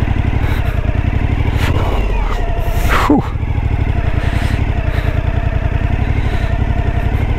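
Suzuki motorcycle engine running at low, steady revs. There is one brief sharp noise about three seconds in.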